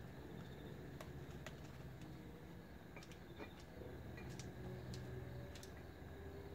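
Two hens preening and shuffling on a plastic milk crate: faint, scattered light clicks, about eight in all, over a low steady hum.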